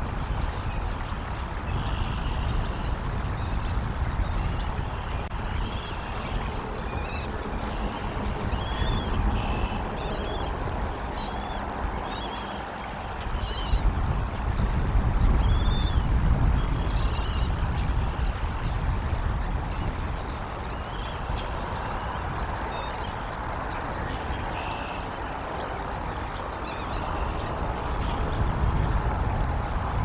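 High, short bird chirps repeating about once a second over a low, steady outdoor rumble that swells louder about halfway through.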